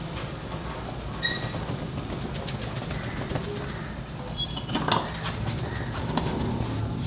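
Belt-driven flour mill running as it grinds raw rice into flour, a steady low drone, with a few short high chirps and clicks over it.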